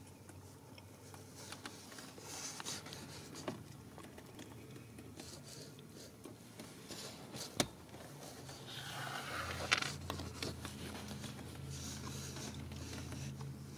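Faint rustling, scraping and a few small clicks from Ragdoll kittens nursing while their mother grooms them, over a faint low steady hum that grows a little stronger after the middle.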